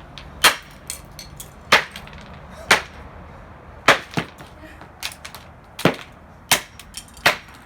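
Repeated sharp blows smashing the plastic casing of an alarm clock radio: about eight loud cracks at irregular intervals, roughly one a second, with lighter clicks of plastic bits between them.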